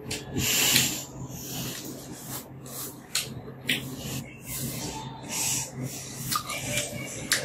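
Close-up eating sounds of someone chewing a piece of braised corn on the cob: wet chewing and lip smacks with short, sharp mouth clicks scattered irregularly, and a longer breathy rush about a second in.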